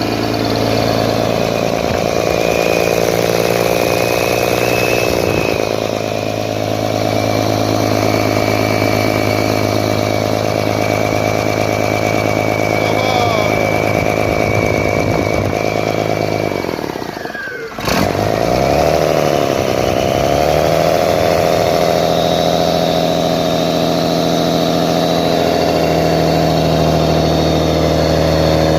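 Mercedes-Benz OM-352/A six-cylinder diesel engine running steadily on its own, out of the vehicle. About two-thirds through, its sound briefly dips and falls, a sharp click follows, and then it runs on, unsteady at first before settling.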